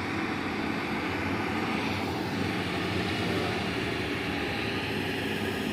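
Heavy diesel engines of mining dump trucks and bulldozers running, a steady low drone under a broad haze of machine noise.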